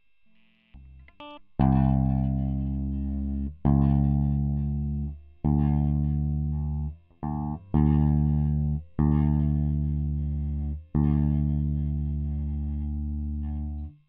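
Electric guitar played through a Boss ME-20 multi-effects pedal: a few short plucked notes, then about seven chords, each struck and left ringing for one to two seconds, muted sharply near the end.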